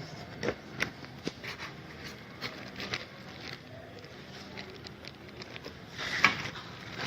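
Speaker box and its packaging being opened and handled by hand: scattered rustles and light knocks, the loudest cluster a little before the end.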